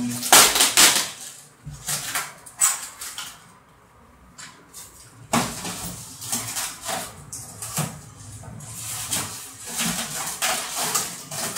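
Polystyrene foam packing pieces and plastic wrap being handled: foam scraping and rubbing against foam, with plastic rustling and light knocks. Loudest in the first second and again from about five seconds in, with a quieter lull between.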